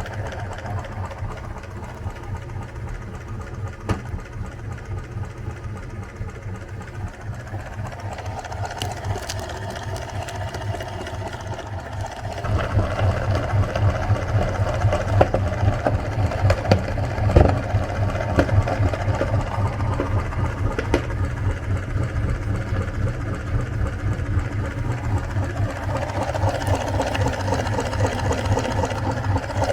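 Electric meat grinder running with a steady, fast-pulsing motor hum as it grinds ice cream; about twelve seconds in the grinding gets louder and stays so.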